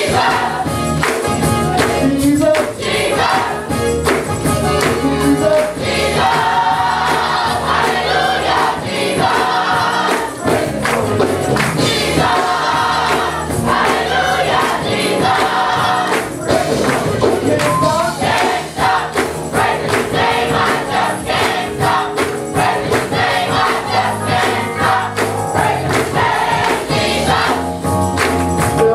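A large women's gospel choir singing over band accompaniment, with a steady percussive beat throughout.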